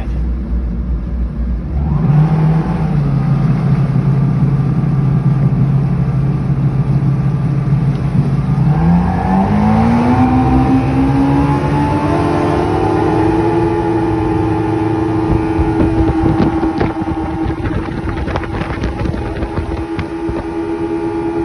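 2003 Yamaha SR230 jet boat's twin engines and freshly rebuilt jet pumps throttling up to get the boat on plane: the engines pick up about two seconds in and hold steady, then rise smoothly in pitch from about nine seconds and settle at a higher, steady cruising pitch. A few brief knocks come through about two-thirds of the way in.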